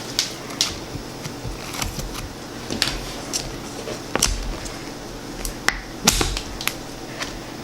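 Homemade slime being squished and stretched by hand, giving irregular sticky clicks and pops, several a second.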